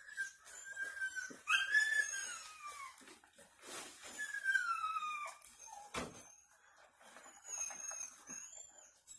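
A dog whining: several long, falling whines. A sharp knock comes about six seconds in, and faint high chirps near the end.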